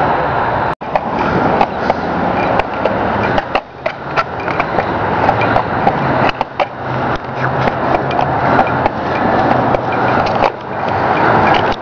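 Skateboard wheels rolling on a concrete sidewalk, with repeated sharp clacks of the board's tail popping and the deck hitting the ground during a trick attempt.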